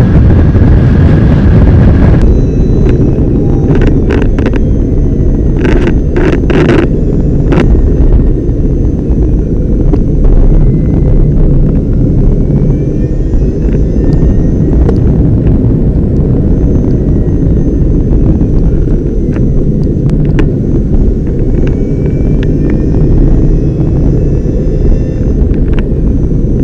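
Electric Fiat 600 Elettra on the move, its sound dominated by heavy low wind and road rumble on the microphone. A faint electric-motor whine rises in pitch several times as the car accelerates, and a few sharp knocks come in the first several seconds.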